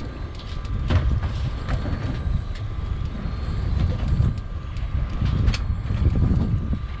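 Wind buffeting the microphone on a small boat, a gusty low rumble with a faint steady whine underneath and a few sharp knocks about a second in and near the middle.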